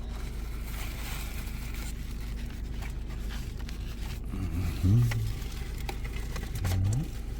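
Steady low hum of a car cabin with light rustling, and two short sliding vocal sounds about two seconds apart in the second half.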